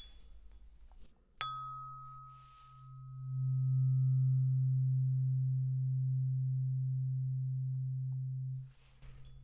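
A low-pitched tuning fork struck about a second and a half in: a bright ping that fades over a few seconds above a steady low hum. The hum swells louder about three seconds in, holds, and stops abruptly near the end.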